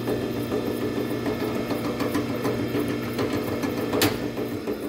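Drill press driving a hollow-chisel mortising attachment, the chisel and auger cutting into a pine board: a steady motor hum with a scatter of clicks from the cut. A sharp knock comes about four seconds in, and the motor hum drops away just before the end.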